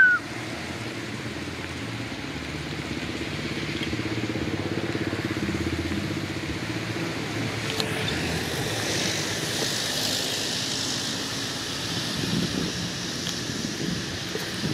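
Motorbike engine running as it passes along the road: a steady low drone, with a rushing hiss swelling and fading a little after the middle.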